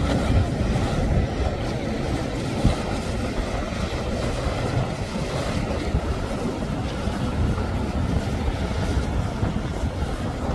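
Small motorboat running at speed through choppy water, its motor blended with the splash of the hull and heavy wind rumble on the microphone. A short thump about two and a half seconds in.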